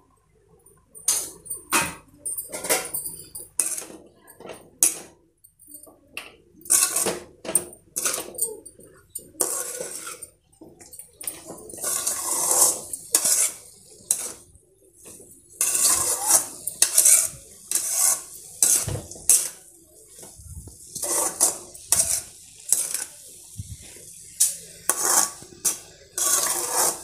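A spoon scraping and clinking against a metal kadai as amaranth greens are stirred, in many short, irregular strokes with some longer scrapes.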